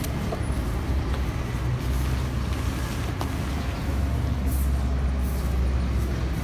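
Steady low outdoor rumble, with a few faint clicks and rustles as tent pole tips are fitted into the tent's hooks.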